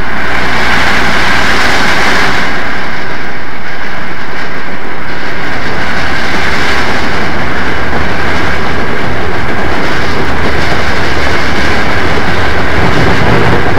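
Southern Pacific AC-11 cab-forward steam locomotive passing close while working its freight train uphill. A loud, steady rush of exhaust steam and rolling wheels.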